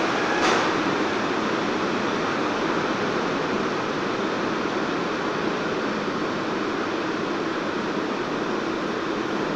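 Steady rushing roar of a subway station, with one sharp click about half a second in.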